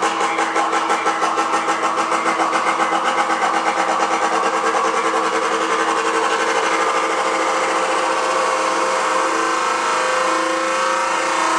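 Car-audio competition sound system playing at very high volume, a loud distorted mix with a fast even pulse of about five beats a second that evens out into a steadier blare about halfway through.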